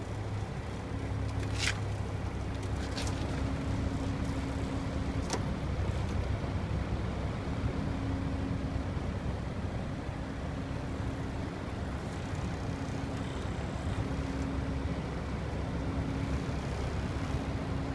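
Outdoor unit of a Viessmann Vitocal 200-S air-source heat pump running with a steady low hum, a humming tone coming and going. In the first six seconds the casing gives three sharp clicks, the sporadic casing rattle the owner is documenting.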